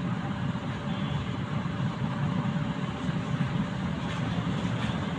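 Steady low background rumble of street traffic.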